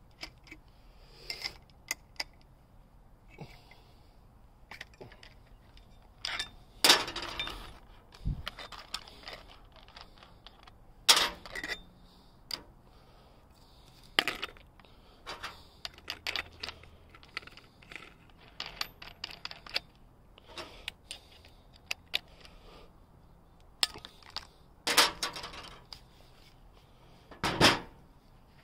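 Scattered clicks, clinks and knocks of a cordless angle grinder being handled while its cutting disc is swapped for a flap disc: metal parts, disc and spanner knocking and being set down on a metal table. The grinder's motor does not run.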